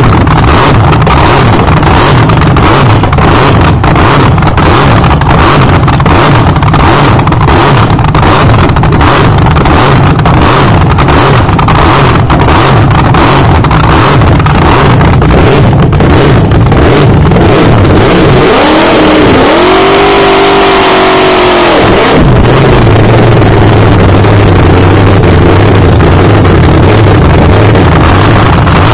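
Supercharged nitromethane V8 of an AA/FD slingshot dragster running with a rough, loping beat, heard from the cockpit. About two-thirds of the way in it is revved hard for about four seconds, its whine rising, holding and falling. It then settles back to a lower, steadier run.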